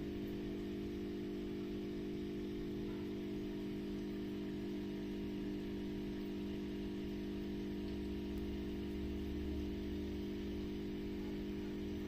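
Steady electrical hum from an aquarium air pump running the sponge filter, unchanging throughout.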